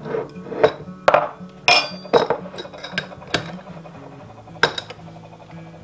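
A stainless steel measuring scoop clinking against a glass jar and a glass measuring cup as brown sugar is scooped out and knocked loose, about seven sharp clinks, with the jar's wire-clamp lid clicking shut late on. Soft background music runs underneath.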